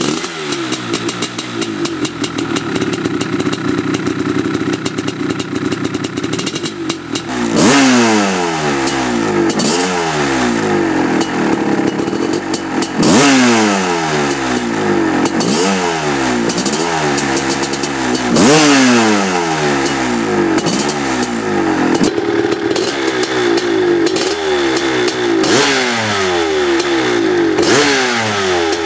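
1986 Maico MStar 500's two-stroke single-cylinder engine idling, then, from about seven seconds in, revved again and again on the throttle, each rev rising sharply and falling back to idle. The engine is being heat-cycled as part of its break-in after a rebuild.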